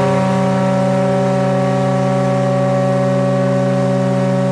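The real RMS Titanic's ship whistle sounding one long, steady blast of a deep chord of several notes, cutting off near the end with a short fading tail.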